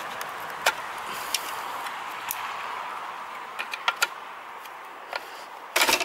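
Sharp clicks and scrapes of a metal tool prying at the rim of a halogen auxiliary driving light's housing, with a louder cluster of clicks near the end as the lens unit comes loose. A steady hiss runs underneath.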